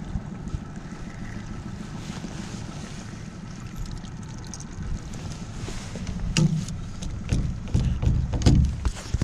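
Wind buffeting the microphone in a steady low rumble. From about five seconds in come several knocks and thumps of gear being handled and someone moving about in a small boat.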